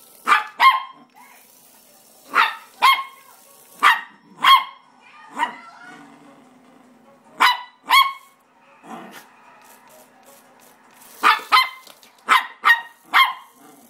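A Morkie puppy giving short, high-pitched barks at a toy RC kart, mostly in quick pairs and threes, about a dozen in all.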